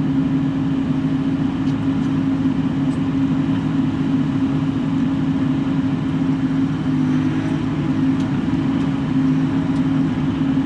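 Bobcat E42 mini excavator's diesel engine running steadily under working load, heard from inside the cab, with a slight change in pitch about seven seconds in.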